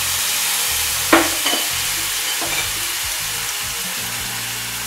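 Chopped tomato and garlic sizzling in oil in a very hot frying pan, stirred with a wooden spatula. The spatula knocks sharply against the pan about a second in, followed by a couple of lighter taps.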